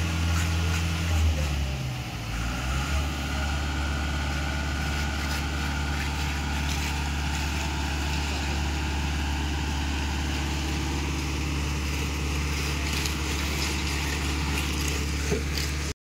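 An engine running steadily with a low hum; its pitch shifts about two seconds in, then holds level.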